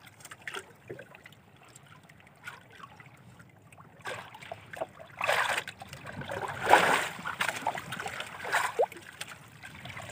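Seawater lapping and splashing against the hull and outrigger float of a small outrigger boat, quiet at first, then a run of louder, irregular splashes from about four seconds in.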